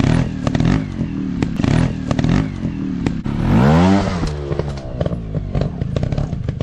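Dirt bike engines running at uneven throttle, with one revved up hard a little over three seconds in and then easing off. Frequent sharp clicks and clatter run through it.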